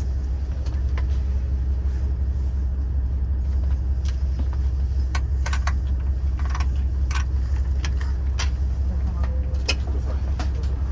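Steady low rumble of a diesel express train heard from inside the passenger cabin. Scattered sharp clicks and rattles come through, mostly in the middle and later part.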